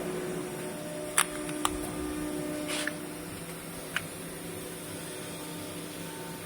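A machine running with a steady hum, punctuated by a few short sharp clicks.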